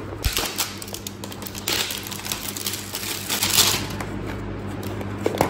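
Plastic packaging crinkling and a plastic dog-treat tub clicking and crackling as its sealed lid is peeled open. Irregular ticks throughout, with louder crinkly rustles about two seconds in and again a little past three seconds.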